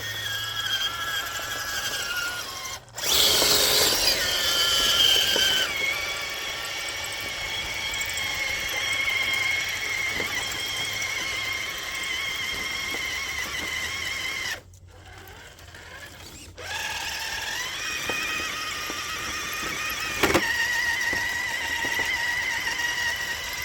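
Traxxas TRX-4 crawler on Deep Terrain Traxx tracks, its electric motor and gearbox whining under load as it crawls out of a muddy pit. The whine stops for about two seconds two-thirds of the way through, then starts again, and there is one sharp knock near the end.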